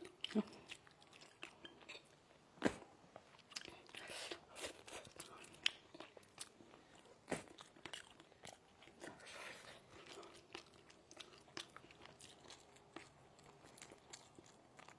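A person chewing and biting crunchy food close to the microphone, with irregular sharp crunches.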